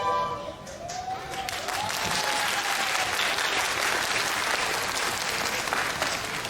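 Audience applauding as a recorder ensemble's piece ends; the clapping swells about a second in and tails off near the end.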